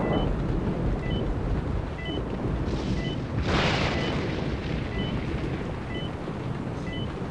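Bedside patient monitor giving a short electronic beep about once a second, the pulse of a patient on oxygen, over a steady low rumble, with a breathy rush of noise about three and a half seconds in.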